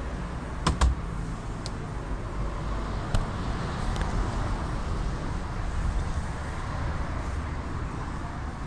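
Panasonic SUR-G1561SA-R under-counter refrigerator running with a steady hum and rumble, its cooling unit working normally. A few sharp clicks or knocks come through, a pair about a second in and single ones a little later.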